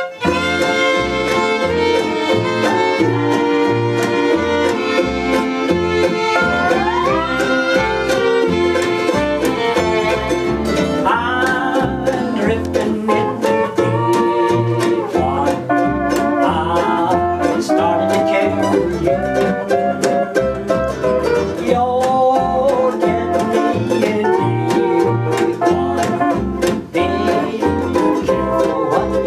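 Acoustic string band playing a bluegrass-style tune, with banjo and guitar over a steady low bass beat and sliding bowed melody lines.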